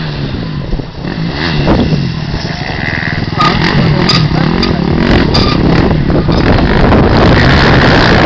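Off-road race motorcycle engine revving up and down as the bike approaches and passes close by, its pitch climbing and dropping in repeated steps and getting louder toward the end, with a few sharp clicks in the middle.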